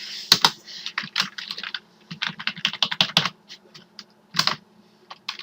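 Computer keyboard being typed on, an irregular run of quick key clicks and taps.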